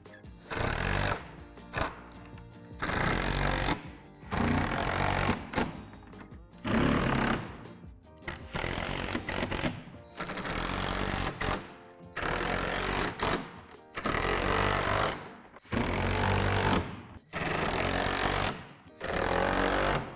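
Cordless power driver running in about a dozen short bursts of a second or so each, driving bolts through the plastic roof panels of a playset roof.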